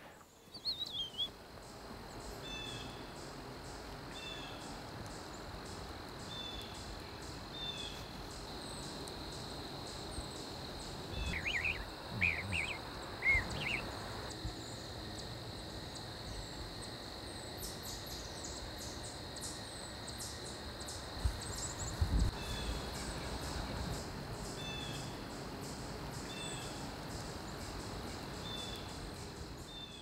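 Autumn woodland ambience: a steady high insect trill, with short chirps repeating about every second and a half, likely an eastern chipmunk's chip alarm call. A few louder, rising and falling bird-like chirps come about 12 seconds in, and low bumps near 11 and 22 seconds in.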